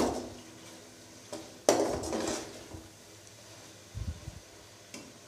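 Metal slotted spoon scraping and knocking against a metal cooking pot while stirring a thick masala, a handful of separate strokes, the loudest just under two seconds in.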